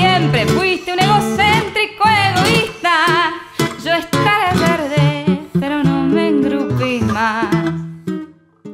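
Background music: a Spanish-language song, sung over guitar, fading out near the end.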